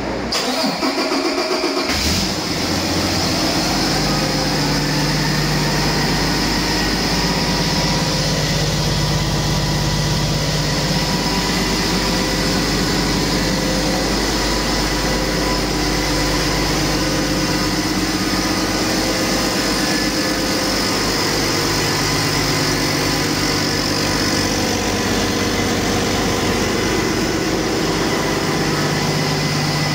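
2016 Paccar MX13 inline-six diesel engine being started on a run stand: a couple of seconds of cranking, then it catches and idles steadily with a faint whine over the engine note.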